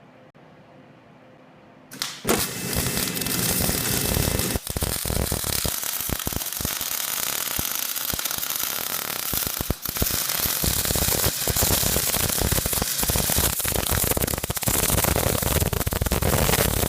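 Electric arc welding: the arc crackles and sputters steadily as a bead is laid, starting about two seconds in, with two brief breaks. The arc is held a little too far from the work, which gives a blobby bead.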